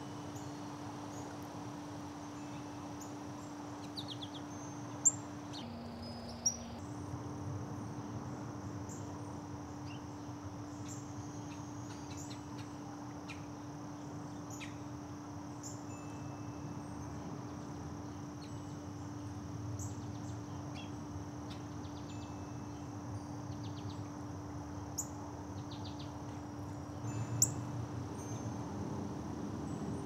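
Songbirds giving scattered short, high chip notes over a steady high insect drone and a low hum, with a few sharp clicks.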